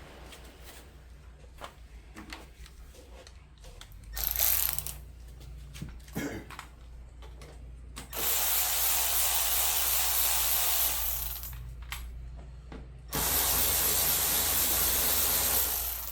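Power tool run in two sustained bursts of about three seconds each, after scattered clicks and a short burst, over a steady low hum.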